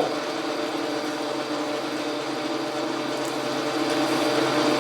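Logan metal lathe running with a steady mechanical hum of motor and drive.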